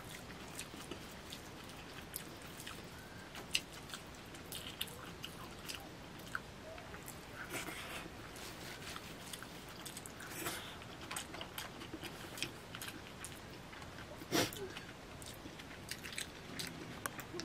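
Eating by hand from a banana leaf: fingers squelching and mixing biryani rice on the leaf, with chewing and mouth sounds. Many small scattered clicks, with a louder one about three and a half seconds in and another near fourteen and a half seconds.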